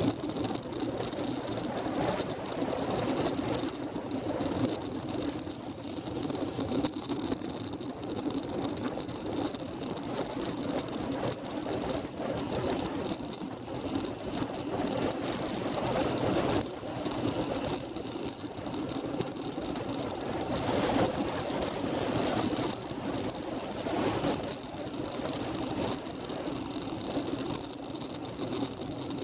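Steady rushing drone of a vehicle travelling down a winding road, picked up by a camera mounted on it. The loudness wavers without breaks.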